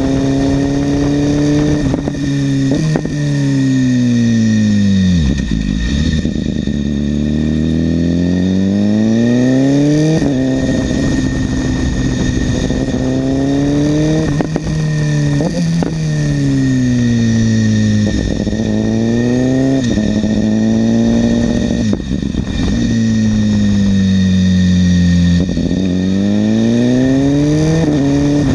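BMW S1000RR sportbike's inline-four engine through an SC-Project exhaust. The revs fall away as the bike slows into corners and climb again as it accelerates out, several times over, with sudden steps in pitch at the gear changes.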